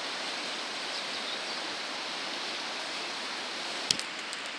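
Steady rush of a flowing river, with one sharp click near the end.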